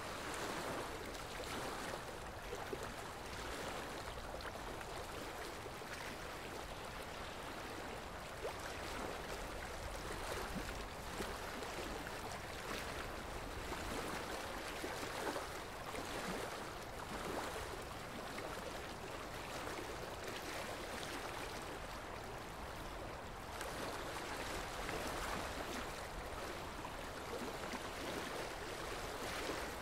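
Running water of a stream, a steady, even rush with no clear breaks.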